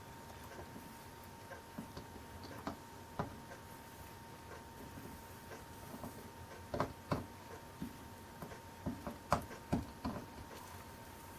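Soldering iron and solder wire making light, irregular clicks and taps against the lead came and glass of a stained glass panel, quickening into a cluster of louder taps past the middle. A faint steady high tone runs underneath.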